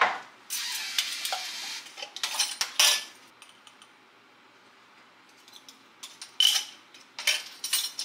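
Measuring spoons clinking and scraping against glass mason jars and a bowl as baking powder and baking soda are measured out. There are a click and a scrape, then a few clinks in the first three seconds, a quiet spell, and more clinks near the end.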